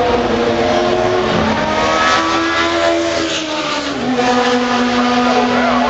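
Open-cockpit sports-prototype race car running at speed down the track and past the listener. Its engine note climbs, then drops in pitch as it goes by about four seconds in, with another steady engine tone heard underneath throughout.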